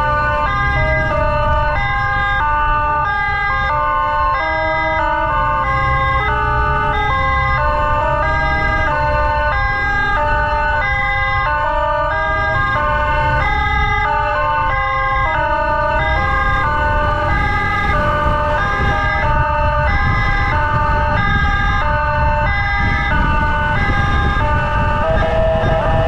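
Electronic emergency siren stepping between several pitches about every half second, without a break, over a steady low rumble of engine and wind noise.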